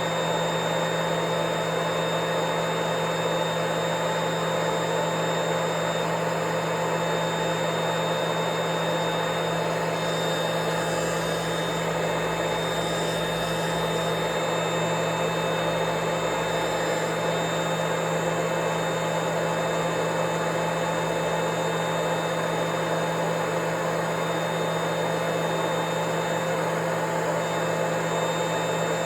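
Vacuum cleaner running steadily at an unchanging pitch: an even drone with a low hum, a thin high whine and a rush of air.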